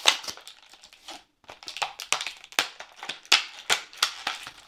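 Clear plastic blister pack crackling and crinkling as it is pulled off its cardboard backing card by hand: a string of irregular sharp crackles, the loudest right at the start.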